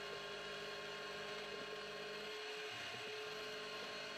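Faint, steady hum of a CNC milling machine running as a 3/8 inch four-flute end mill cuts a step into a metal block, with a lower tone that drops away a little past two seconds in.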